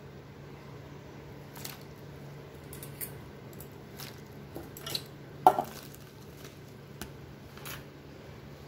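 Hands swishing and squeezing sliced mushrooms in turmeric water in a steel bowl: soft sloshing with scattered light splashes and knocks against the bowl, the loudest about halfway through.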